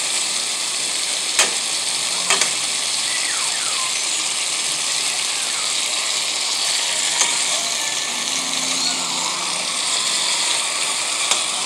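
Chicken pieces sizzling steadily as they fry in caramelized sugar and oil in an aluminum pan, browning for a stew. A few sharp clicks come from the metal spoon knocking the pan as the pieces are stirred.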